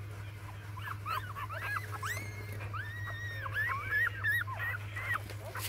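Young puppies whimpering: a quick run of short, high, squeaky whines, one after another, starting about a second in and stopping near the end. A steady low hum lies underneath.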